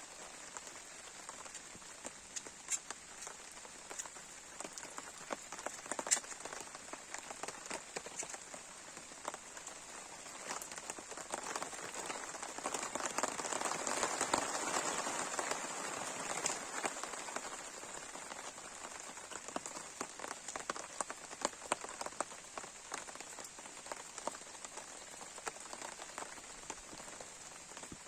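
Campfire crackling, with frequent sharp pops over a steady hiss, growing louder for a few seconds around the middle.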